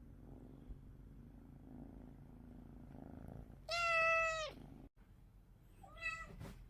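Domestic cat purring low and steadily, then giving one loud drawn-out meow about halfway through that drops in pitch at its end, and a shorter meow near the end.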